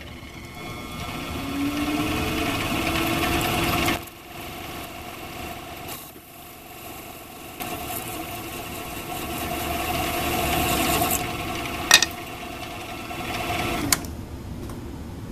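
Small metal lathe running, its parting tool cutting into aluminum bar stock to part off a thin cap. The cutting noise swells, eases off, then builds again, with a sharp click about twelve seconds in and a smaller one near the end.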